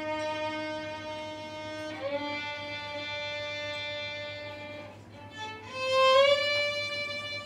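Solo violin playing slow, long held notes. After a short break about five seconds in, a louder note slides up into place and is held.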